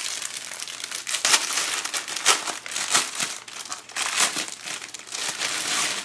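Clear cellophane packaging sleeve crinkling and rustling irregularly as a fabric zipper pouch is worked out of it by hand.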